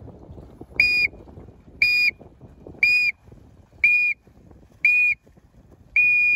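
High, steady-pitched sound signal: five short blasts about a second apart, then a long blast starting near the end, the countdown-then-go pattern used to signal a sailing start. Low water and wind noise underneath.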